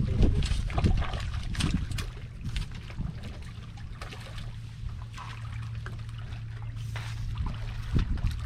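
Seawater sloshing and trickling among shore rocks, with wind rumbling on the microphone for the first couple of seconds and a low steady hum underneath the rest.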